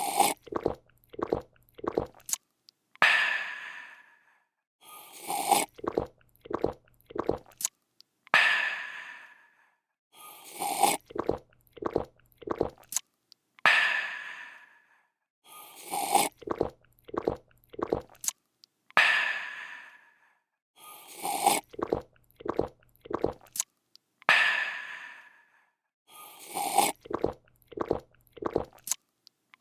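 A drinking sound effect looped nonstop: a slurp, three or four quick gulping swallows, then a breathy, refreshed "aah". The cycle repeats about every 2.7 seconds, roughly eleven times.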